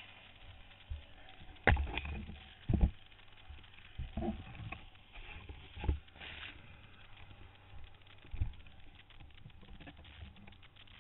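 A handful of irregular knocks and scrapes, the loudest about two seconds in, over a faint steady hum.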